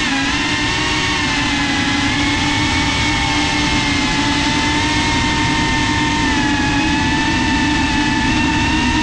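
FPV racing drone's brushless motors and propellers whining steadily at cruising throttle, picked up close by the GoPro on board. The pitch wavers slightly as the throttle shifts, over a constant rushing noise.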